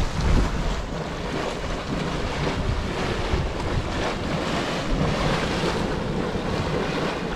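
Steady rushing hiss of a steaming, boiling volcanic hot-spring pool, with wind buffeting the microphone, most strongly about half a second in.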